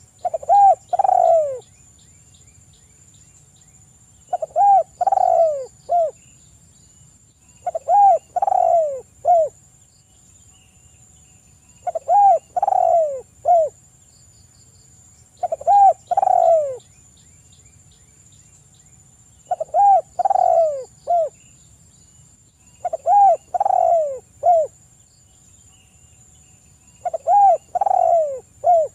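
Spotted dove singing. It gives eight phrases of three or four deep coos, each coo falling in pitch, and the phrases repeat about every four seconds.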